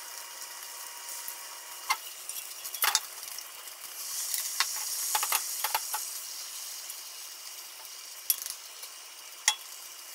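Beaten egg sizzling in a hot rectangular tamagoyaki pan, with wooden chopsticks clicking and scraping against the metal as the omelette is rolled. The sizzle grows louder around the middle as a fresh layer of egg spreads in the pan.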